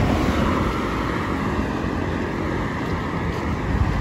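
Road traffic going past steadily, with a faint wavering engine or tyre whine over it.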